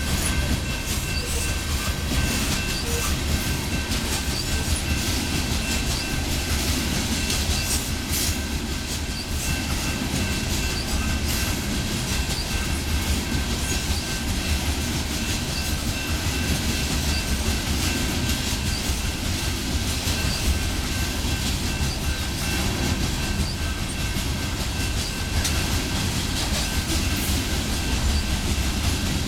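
Loaded BNSF coal train rolling past at a steady pace, its wheels clicking over the rail joints with a continuous rumble. A thin, steady high tone runs over it.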